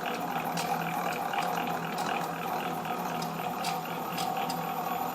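Stick-cutting machine's cutting unit running with a steady hum and repeated sharp ticks. The owner takes the ticking for play in the cutting unit, which makes the grooves mismatch and damage the sticks.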